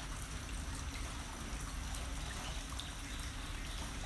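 Steady trickling and lapping of shallow floodwater, with a low steady noise underneath.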